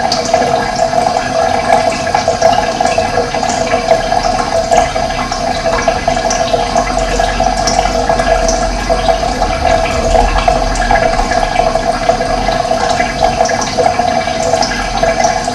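Steady rush of running water, with short, high bird chirps scattered throughout.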